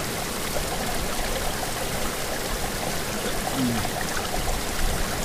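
Steady rush of a fast-flowing mountain river over rocks.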